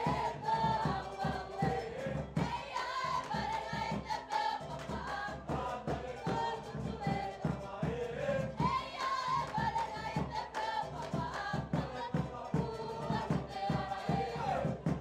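Cook Islands music: a group of voices singing together over a fast, steady drum beat, with a large bass drum among the drums.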